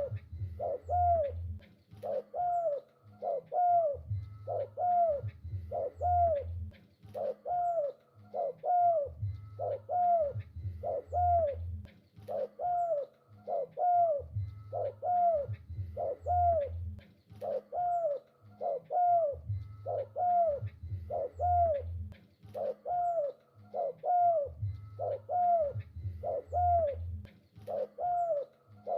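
Spotted dove (tekukur) cooing over and over in a steady rhythm, each short phrase of arched coos with a deep low undertone, repeating without a break.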